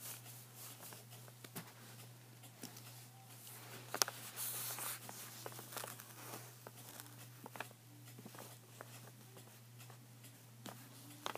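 Faint scratching of a ballpoint pen on paper as a small circle is drawn, with scattered light ticks and a sharper click about four seconds in, over a steady low hum.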